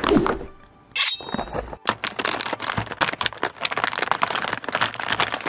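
Crinkly plastic toy packaging being pulled and torn open by hand: a dense run of crackles and rustles, with a short high squeak about a second in.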